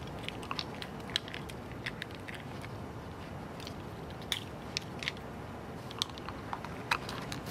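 Young raccoons chewing and rummaging in spilled garbage: scattered small crunches and clicks.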